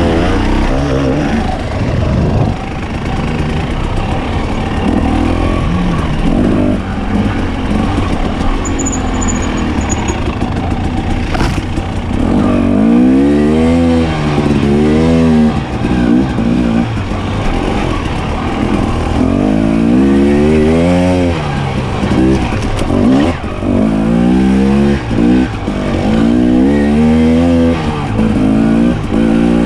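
Dirt bike engine under way on a trail, revving up and down over and over as the throttle opens and closes, its pitch rising and falling every second or two, over a steady rumble of wind and riding noise. A single sharp knock comes about eleven seconds in.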